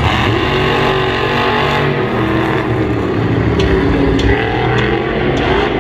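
Megalodon monster truck's supercharged V8 running hard, revving up and down as the truck drives.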